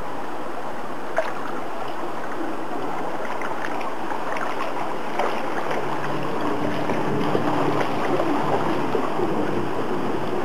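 Steady rush of flowing water with small splashes and drips. A faint wavering hum comes in about six seconds in.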